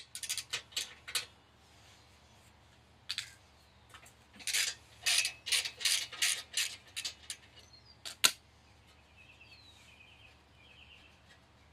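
Hand tools being worked on the motorcycle: short, sharp clicks and rattles in quick strokes about three a second, coming in clusters, with one loud single click about eight seconds in.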